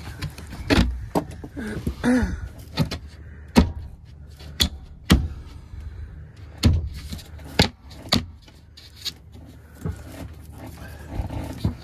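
Sharp, uneven knocks and taps on wood, more than a dozen in all, as a wooden piece is worked into a cut hole in a boat's timber deck.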